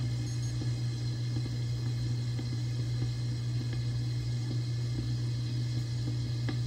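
Aquarium protein skimmer and circulation pump running: a steady low hum with a faint hiss.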